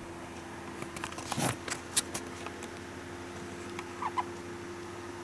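Soft rustling and a cluster of light clicks from fabric and handling, over a steady low room hum, with a brief faint squeak about four seconds in.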